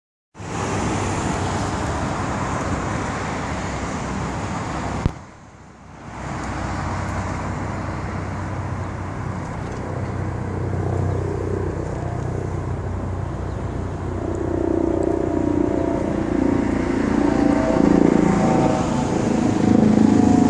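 Road traffic noise. A sudden click about five seconds in is followed by a dip of about a second. From about two-thirds of the way in, a car engine's pitched drone grows louder toward the end.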